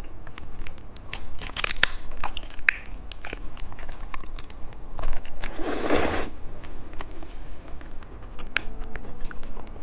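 Plastic candy packaging crinkling and crackling as it is handled and unwrapped, with many small sharp clicks and a louder, longer rustle about six seconds in.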